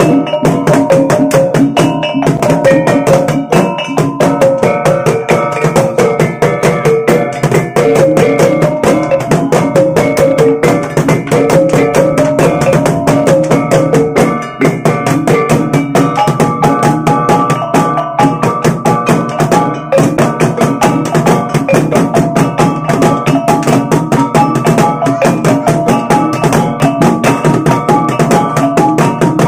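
Bajau bertitik ensemble playing loud and fast. Several gendang drums are beaten rapidly with sticks while a kulintangan (a row of small bossed kettle gongs) taps out a stepping melody over them, with a steady low ringing tone underneath.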